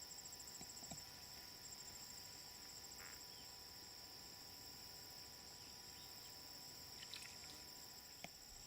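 Faint, steady high-pitched chorus of crickets trilling, with a few faint clicks.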